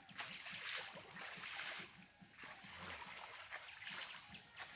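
Shallow pond water splashing and sloshing in several surges, about one a second, as a cast net is hauled in by hand through it and a man wades in the water.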